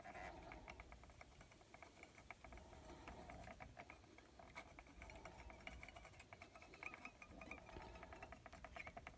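Faint, rapid scratchy ticking of rod-wrapping thread as it is wound by hand onto a fishing rod blank over a micro guide.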